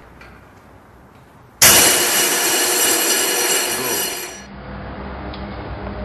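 Fire suppression system discharging: a sudden loud hiss of pressurised extinguishing agent bursting out about a second and a half in, lasting about three seconds before dying down to a fainter steady noise.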